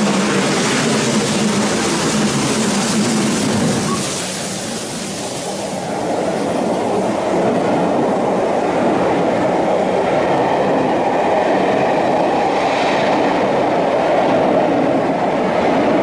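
Steam-hauled train passing close by. A steady hum in the first few seconds gives way to a brief lull, then the steady rolling noise of the coaches going past.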